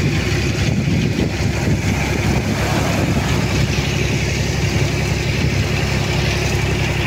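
Tractor engine running steadily at an even idle-like speed, with waves washing on the shore beneath it.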